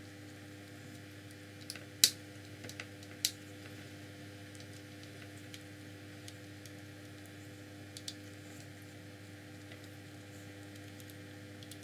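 Small plastic and metal parts of a 1/18 scale RC car being handled and taken apart, giving a few sharp clicks, the loudest about two seconds in and another a second later, with scattered faint ticks over a steady low hum.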